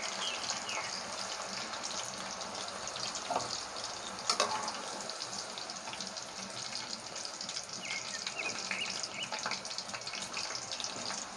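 Potato sticks frying in hot oil in a pan, the first fry at medium heat: a steady, dense sizzle. A steel slotted spoon knocks against the pan twice, about three and four seconds in.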